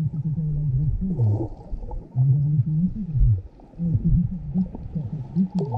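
Low moaning tones that hold, bend and slide up and down in pitch, several overlapping, with short gaps between phrases.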